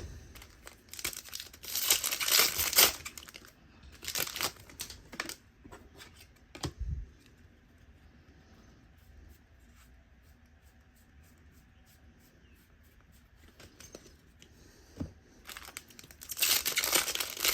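Trading-card pack wrappers being torn open and crinkled, in several bursts with a quieter stretch in the middle and a single low thump about seven seconds in.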